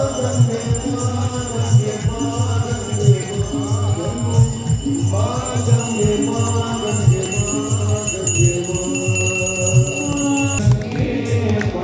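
Music with group singing over a steady beat of about two drum strikes a second.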